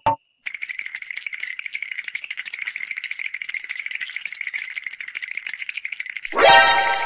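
Rattle sound effect: rapid, dense clicking that runs evenly for about six seconds. Near the end it gives way to a louder rising sweep.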